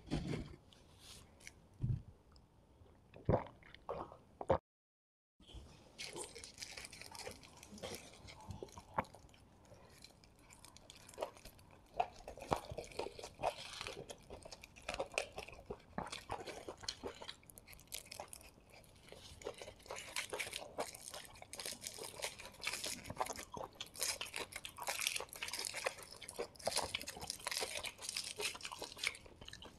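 Aluminium foil wrapped around a chappathi roll being crinkled and peeled back by hand, a dense crackling of small clicks. It starts after a few scattered taps and a second of dead silence about five seconds in.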